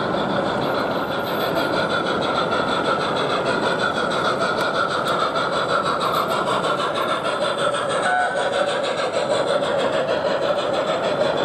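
Model railway train running past on an exhibition layout: a steady, continuous running sound.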